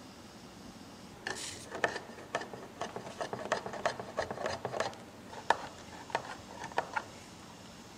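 Hand-lever can opener cutting around the rim of a large tin can: an irregular run of sharp metallic clicks and crunches, a few a second, as the blade is levered through the lid in short strokes. It starts about a second in and stops near the end.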